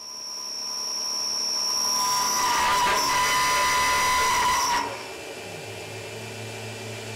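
CNC mill's 8 mm end mill cutting a slot in a metal block with a steady high-pitched whine, which comes from the spindle speed being too high. The cutting grows louder, then stops about five seconds in, leaving a quieter steady machine hum.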